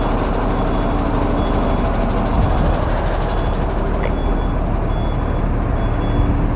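Steady low rumble of an idling vehicle engine, with a faint high beep repeating about once a second.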